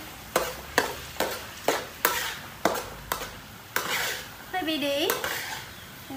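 Metal ladle scraping and knocking against a stainless steel wok as food is stir-fried, about two strokes a second, over a faint sizzle. A brief rising call is heard about three-quarters of the way through.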